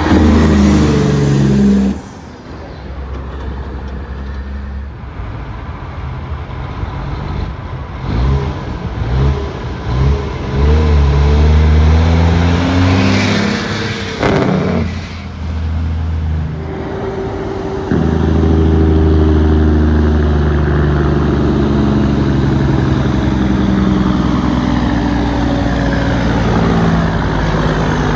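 Big-rig semi-truck diesel engines through tall straight stacks, several trucks one after another, running loud and barking on the engine (Jake) brake, the pitch sliding down as the revs fall. Loud stretches alternate with quieter gaps where one truck gives way to the next.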